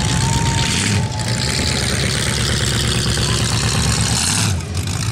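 Demolition derby car engine running loud as the car drives across the muddy arena, a steady low rumble that is briefly broken about a second in and again near the end.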